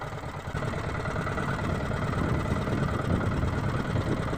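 Boat engine running steadily with a low rumble while the boat is under way.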